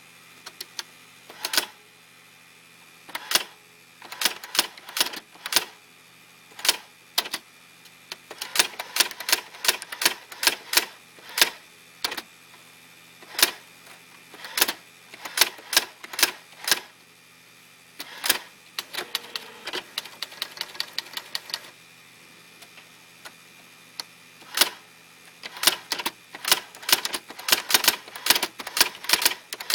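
Brother SX-4000 electric typewriter typing: sharp key strikes, a few spaced out at first and then in quick irregular runs, over the faint steady hum of its motor. Around twenty seconds in, a continuous mechanical whirr runs under the strikes for a few seconds.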